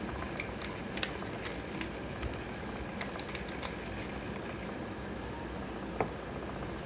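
Steady background room noise with a few light clicks and taps as a wooden craft stick scrapes out a small plastic cup and goes into a plastic mixing cup of epoxy. The sharpest tap comes about six seconds in.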